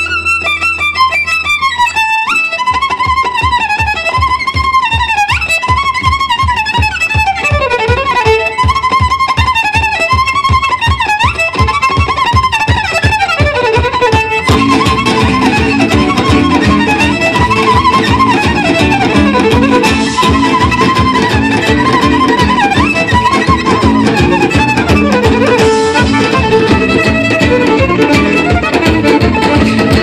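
Live Romanian-gypsy-style violin tune with swooping slides that imitate birdsong. A steady rhythmic accompaniment of guitar, upright bass and hand drum comes in about two seconds in and grows fuller about halfway through.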